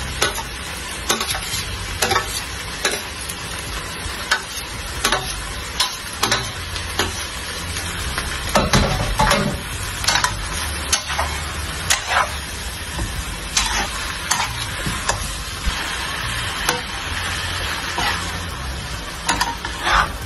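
Beef, bell pepper and lá lốt leaves stir-frying in a nonstick pan: a steady sizzle, with the metal spatula knocking and scraping against the pan about once a second as the food is tossed.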